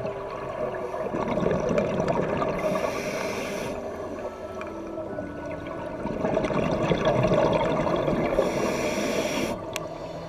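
Scuba breathing through a regulator underwater. Twice, a stretch of bubbling exhaled air is followed by a short hiss of inhaling through the demand valve, the two breaths about six seconds apart.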